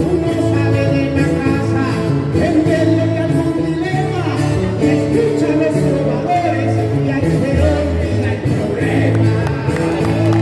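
A male trovador singing improvised trova paisa verses in Spanish into a microphone over a steady instrumental backing.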